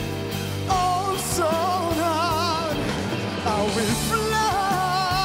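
A male singer holding long sung notes with wide vibrato over pop band accompaniment, two sustained phrases.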